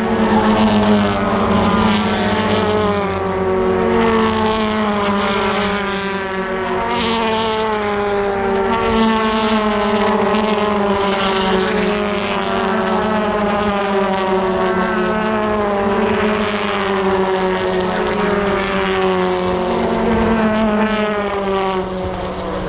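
British Touring Car Championship race cars, turbocharged four-cylinder engines, going past at racing speed one after another. Several overlapping engine notes each fall in pitch as the cars go by.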